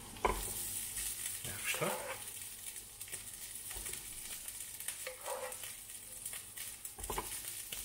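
Fried minced meat spooned and spread with a wooden spoon onto the ridged plate of a sandwich toaster: soft scrapes and a few light knocks over a faint, steady sizzle.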